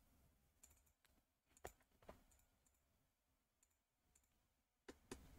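Faint computer mouse clicks in near silence: two about a second and a half apart in the middle, and two more close together near the end.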